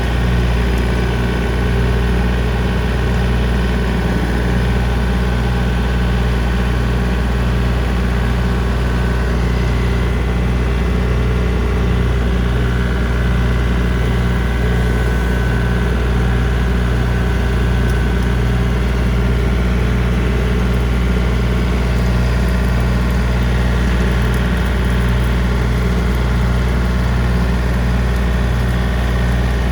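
John Deere 3025D compact tractor's three-cylinder diesel engine running steadily at a constant speed while it drives a brush hog rotary cutter in first gear, low range.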